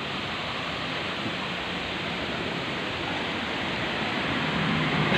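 Steady rushing noise without distinct events, with a faint low hum coming in near the end.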